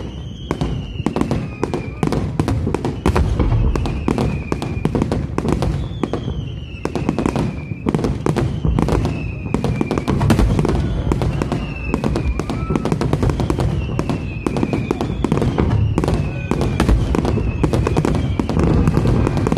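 Fireworks finale: a dense, continuous barrage of shell bursts and crackling bangs, with a high tone that falls slightly in pitch recurring every couple of seconds.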